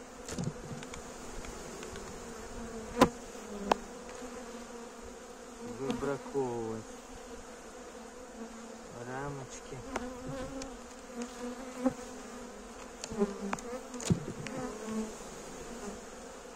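Honeybee colony humming steadily in an open hive, with a few sharp wooden clicks and knocks as a metal hive tool pries comb frames loose and lifts them, the loudest about three seconds in. Twice, around six and nine seconds in, the buzz briefly wavers up and down in pitch.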